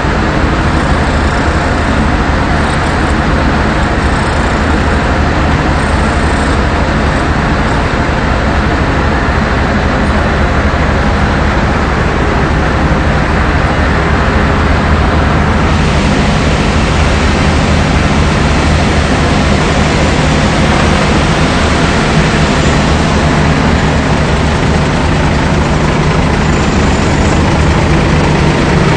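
Heavy diesel engine of a truck-mounted crane running steadily, a low hum under a broad rushing noise. The high hiss grows brighter about halfway through.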